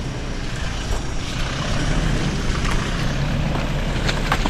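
Vehicle engine running under load on a muddy road, a steady low hum over rough noise that grows louder about two seconds in, with a few sharp clicks near the end.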